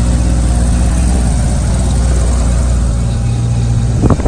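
The piston engine and propeller of an Extra 330LC aerobatic plane, heard from inside the cockpit, running loud and steady just before takeoff. A short sharper sound cuts in near the end.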